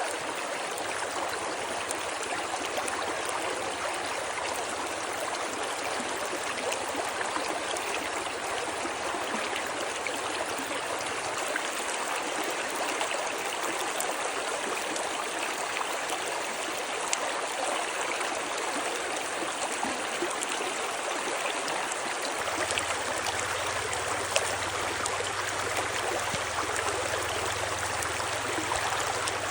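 Stream water flowing steadily, an even, unbroken sound of running water.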